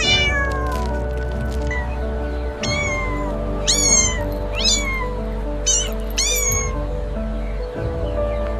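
A cat meowing repeatedly, about seven short high meows that each fall in pitch, over steady background music.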